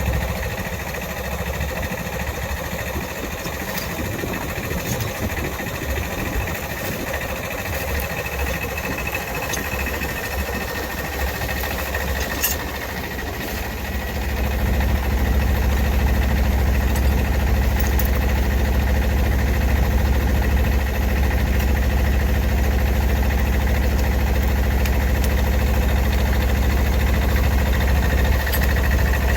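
A vehicle engine running steadily, getting louder about halfway through.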